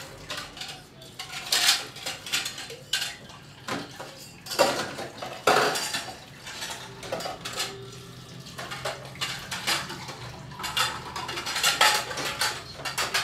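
Steel dishes and kitchen utensils clinking and clattering in irregular knocks, as pots and plates are handled at a kitchen counter.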